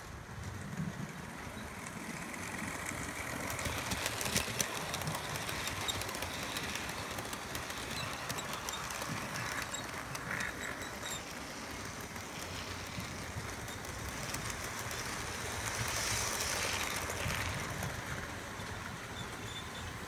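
Model railway train, a diesel locomotive hauling a rake of coaches, running past along the track: a steady rumble of motor and wheels with many light clicks, growing louder about two seconds in, loudest toward the end and easing off just before it stops.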